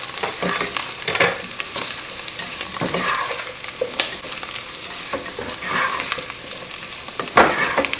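Potatoes, garlic and parsley sizzling in hot oil in a pot while being stirred, with a steady sizzle and scattered clicks and scrapes of the utensil against the pot.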